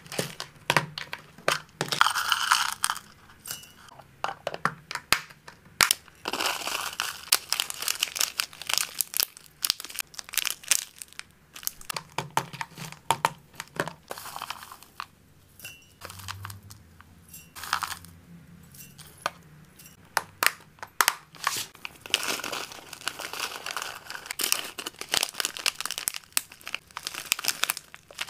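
Dry hamster food of flakes, dried flowers and herbs rustling and rattling as it is scooped and poured between clear plastic containers, with crinkling of plastic zip bags and sharp plastic clicks. The sounds come in repeated bursts with short quieter gaps between them.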